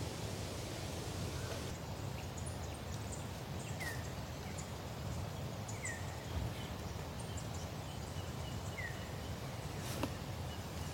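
Steady outdoor background noise with a bird giving three short chirps about two seconds apart, and a sharp click near the end.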